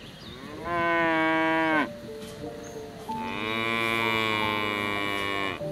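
Cow mooing twice: a call of about a second, then a longer call of about two and a half seconds, each dropping in pitch at the end. Soft background music plays underneath.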